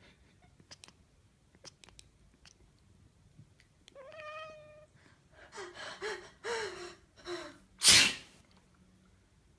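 A domestic cat meows once, a call that rises and then holds. A few short breathy cries follow, and about eight seconds in a person sneezes loudly.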